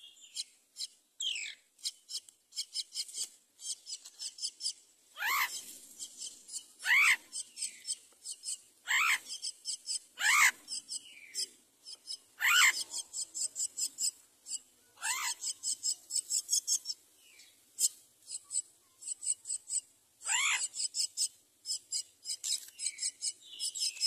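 Common myna birds calling at the nest during feeding: fast runs of short, high, rasping chirps, typical of a nestling begging, broken every couple of seconds by loud calls that slide steeply down in pitch.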